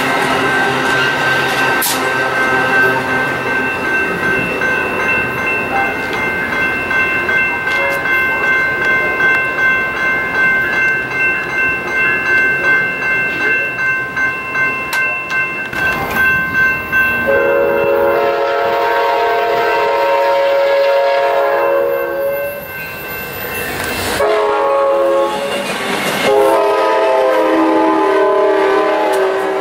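Passenger train cars rolling away with a steady high ringing squeal and a pulsing rattle from the wheels. Then a passing Amtrak California train sounds its horn: a long blast about 18 seconds in, a short one, and another long one near the end.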